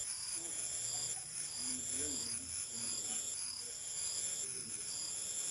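Insects chirring in high, even pulses about a second long, with faint low sounds beneath.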